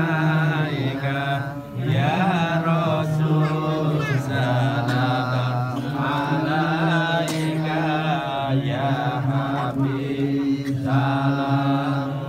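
A group of men chanting Islamic devotional praise (sholawat) together, in long held notes broken by short pauses for breath.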